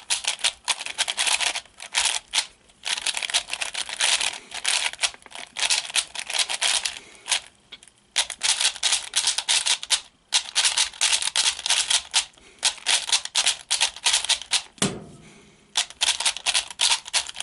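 Diansheng 3x3 speedcube being turned fast in the hands: quick runs of plastic clicking and clacking as the layers turn and cut corners, with three short pauses.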